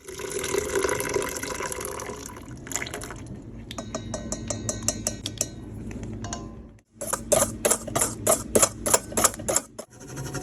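Kitchen baking sounds: a utensil beaten rhythmically around a mixing bowl, about four to five strokes a second, with the bowl ringing faintly. The run cuts off abruptly and starts again in faster, louder strokes.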